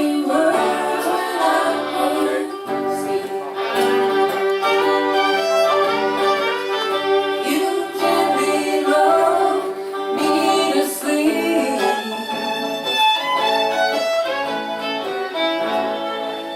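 Acoustic folk band playing an instrumental passage: a fiddle carries the melody with long held and sliding notes over a steady rhythmic accompaniment.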